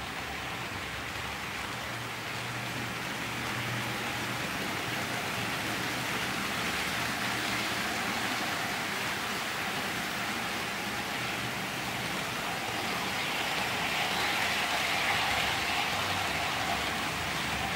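OO gauge model trains running on the layout track, a steady whirring rumble of motors and wheels on rail, growing a little louder about three-quarters of the way through as the Hornby Class 373 Eurostar model passes.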